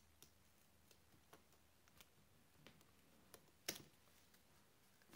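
Near silence with a few faint, short clicks and taps from hands handling a pom-pom strip and double-sided tape on a tabletop; the clearest tap comes about three and a half seconds in.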